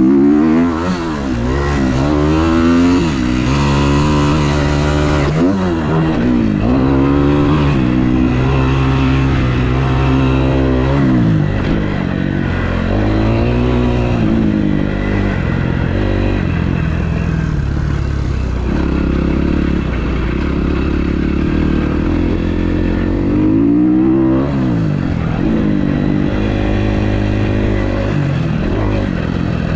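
2012 Kawasaki KX250F's four-stroke single-cylinder engine running hard under riding load. Its pitch repeatedly rises and drops back as the throttle is opened and closed.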